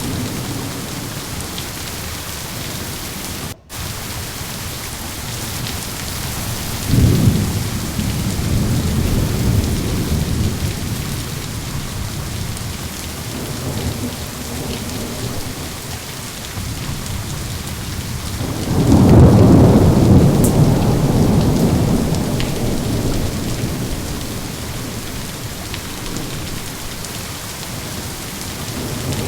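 Steady rain with two rolls of thunder: a shorter rumble about seven seconds in and a louder, longer one that swells around nineteen seconds and slowly fades. The sound cuts out for an instant about three and a half seconds in.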